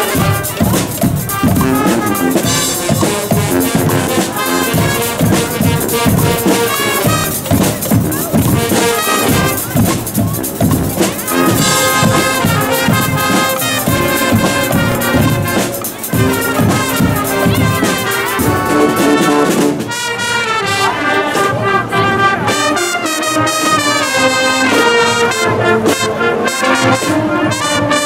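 Guggenmusik band playing loud brass, trumpets and trombones, over drums.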